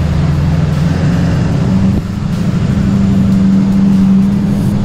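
Duramax V8 turbodiesel pickup driving, its engine droning steadily as heard from inside the cab. The pitch rises about two seconds in and then holds steady.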